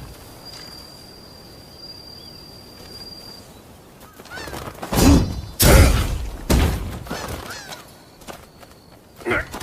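Naginata spear-fight sound effects: a faint steady high tone, then three heavy hits in quick succession about five to seven seconds in, and a shorter hit near the end.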